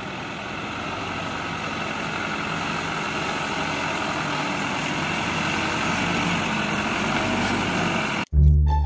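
A dump truck's diesel engine running steadily, growing slightly louder over the stretch, then cutting off abruptly near the end.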